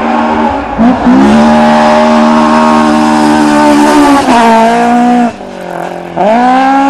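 Rally car engine at high revs on a gravel stage, holding a steady, high note as it comes through. The revs drop sharply a little after four seconds in as the driver lifts, then after a short quieter spell the engine revs up hard again near the end.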